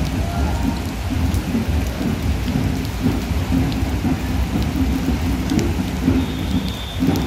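Steady rain falling on a paved street, with a constant low rumble beneath it.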